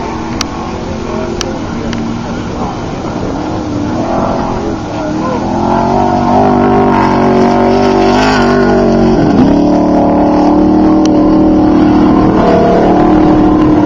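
Off-road race vehicle engines running close by, getting louder about five seconds in and staying loud, with the engine pitch dipping briefly and then rising again a little past the middle.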